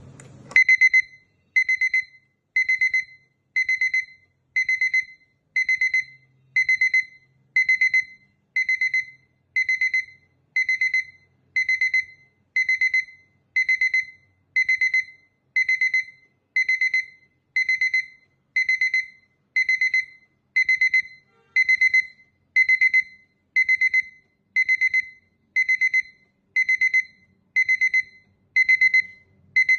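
Sonam electronic alarm clock sounding its alarm: a high-pitched burst of rapid beeps repeating about once a second, starting about half a second in.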